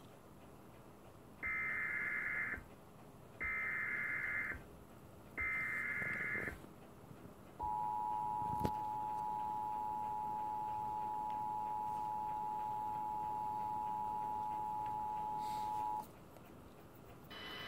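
Emergency Alert System tones from a TV speaker for a severe thunderstorm warning. First come three one-second bursts of warbling digital SAME header tones, about a second apart, which encode the alert. Then the two-tone EAS attention signal sounds steadily for about eight seconds, marking that an emergency voice message follows.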